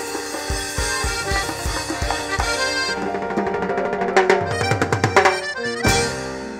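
Latin dance-band music with accordion and a drum kit, a steady kick-drum beat about twice a second. About three seconds in the groove breaks into a quick drum fill, which closes with one strong final hit near the end.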